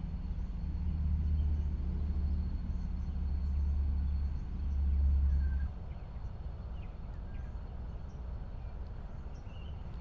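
Outdoor ambience: a low rumble that builds and then drops off abruptly about six seconds in, with a few faint bird chirps and a thin steady high tone.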